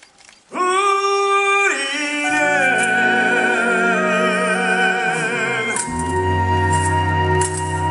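Musical theatre singing with orchestra: a long held note starts about half a second in, more voices and parts join in layered harmony with vibrato, and a deep bass chord comes in about six seconds in.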